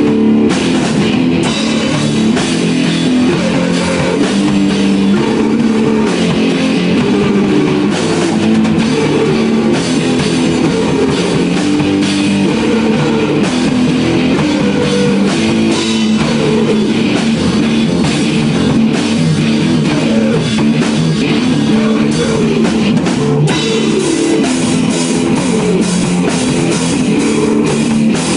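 Live rock band jam: electric guitar and drum kit playing loudly together.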